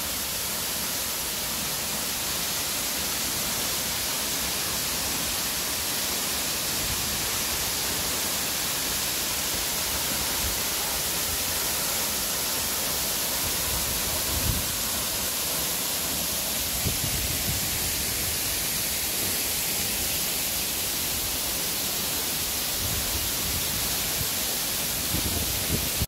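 Steady rush of a 75-metre waterfall falling into its plunge pool: an even, unbroken noise of falling water.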